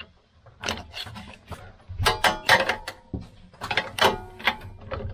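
Spark plug socket and wrench being fitted to a small petrol generator's spark plug: a run of sharp metallic clicks and clinks, a few of them ringing briefly.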